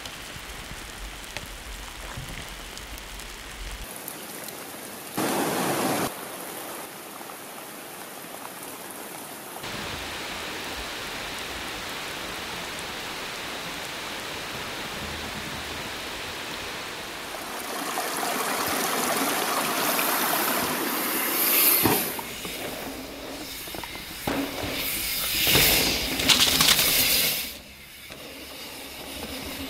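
Steady hiss of rain falling on a forest, with a short louder rush about five seconds in. Later it swells into a rising rush that cuts off suddenly, followed by several short loud rushing surges near the end.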